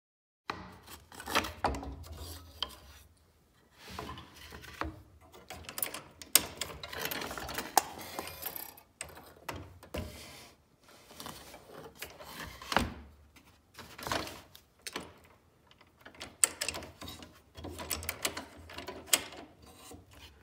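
A scroll saw being handled between cuts: irregular clicks and knocks from the blade clamp and upper arm, with the stacked birch plywood scraping and bumping on the saw table as the blade is threaded through the next pilot hole.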